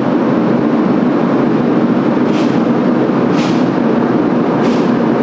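Supercharged, carbureted test engine running steadily on the engine dyno, heard through the control-room window, with no change in speed. Three faint short hisses come about two and a half, three and a half and nearly five seconds in.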